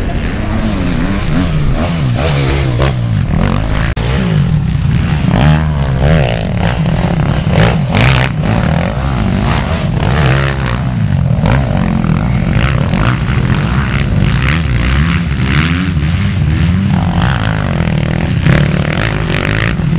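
Motocross dirt bike engines running and revving, the pitch rising and falling as the riders work the throttle through the sandy track, with one bike passing close by about ten seconds in.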